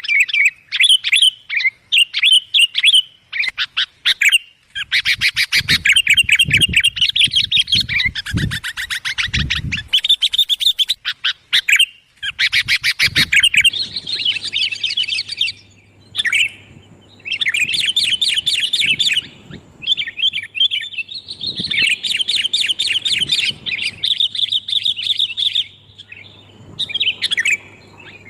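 Sooty-headed bulbuls (kutilang) chattering loudly, fast runs of bright chirping notes in bouts with short breaks, played as a lure call to draw in wild birds. A few low thuds sound in the middle.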